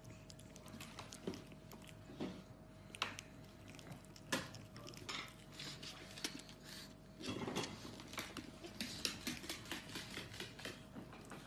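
Faint, scattered clicks and taps from pug puppies' paws and claws on a hardwood floor as they play, with a short louder burst about seven seconds in.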